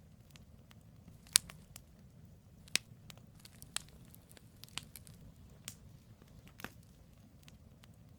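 Firewood burning in a campfire, crackling with sharp, irregular pops over a low steady rumble; the loudest pop comes about a second in.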